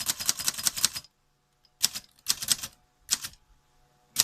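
Keys of a manual Antares portable typewriter being typed in quick runs of sharp clacks: a long run of about a second, then three shorter runs. The ribbon holder now lifts and drops on a rubber band standing in for its missing return spring.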